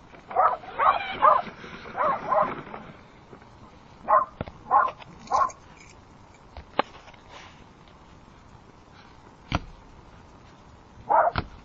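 Dog barking at a possum it has cornered: a quick run of barks at the start, three more around the middle and another pair near the end, with a couple of sharp clicks in between.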